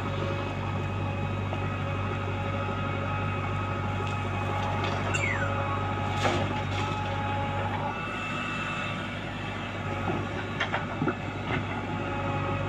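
Heavy diesel machinery running steadily, with a constant low hum and several steady whining tones. There is a brief falling squeal about five seconds in and a few sharp knocks in the last few seconds.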